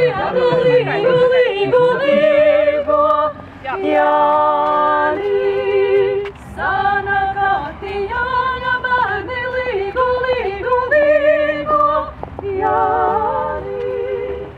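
Voices, women's leading, singing a Latvian Midsummer folk song unaccompanied, in long held notes with a wavering tremble, phrase after phrase with short breaths between.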